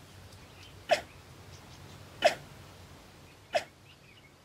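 Cheetah chirping: three short, sharp calls a little over a second apart, the call a mother cheetah uses to find her cubs hidden in the bush.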